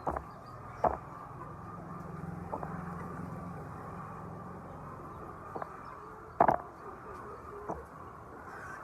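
Laying hens in a poultry shed: a few short, sharp calls over steady background noise, the loudest about six and a half seconds in.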